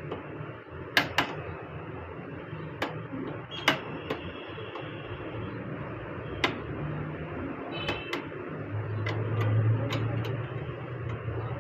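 Scattered sharp clicks and knocks of parts and tools being handled on a Xerox 5755 copier during repair work, over a steady background hum; a low hum swells briefly near the end.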